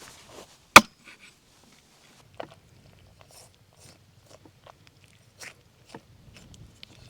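A single sharp chop on wood about a second in, then scattered light crunches and clicks of food being handled and cut. A faint low rumble runs underneath from a couple of seconds in.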